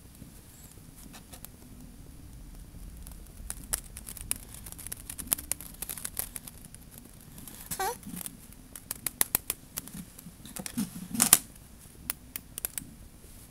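Scattered small clicks and taps of hard plastic cube pieces, screws and a screwdriver being handled while the centre screws of a DIY Rubik's cube are fitted onto its core, with a louder clack about eleven seconds in.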